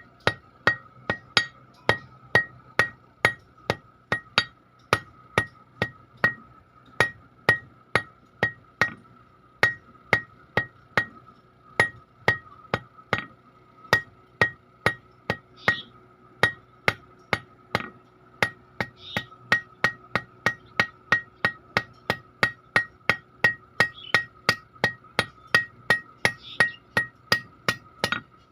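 Blacksmith's hand hammer striking iron on an anvil in a steady rhythm of about two blows a second, each blow ringing.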